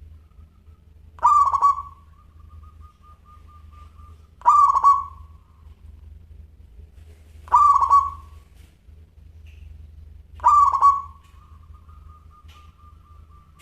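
Zebra dove (perkutut) singing: four loud coos about three seconds apart, two of them trailing off into a soft, rapid, even trill. A steady low hum lies underneath.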